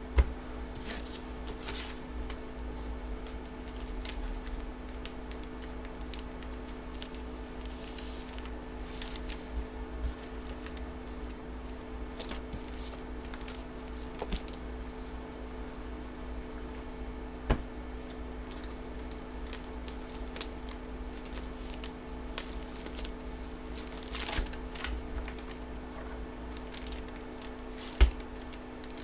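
Plastic comic-book bags crinkling and rustling as comics are slid back into them, with a few sharp knocks: just at the start, about halfway, and near the end. A steady low hum runs underneath.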